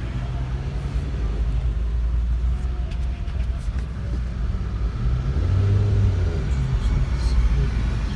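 Steady low rumble of a car in motion, with a faint engine hum underneath.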